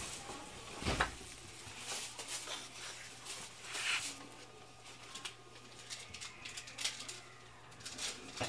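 Inside a JR West 223 series electric train standing at a station: a steady low hum with scattered clicks, knocks and rustles, and a thump about a second in.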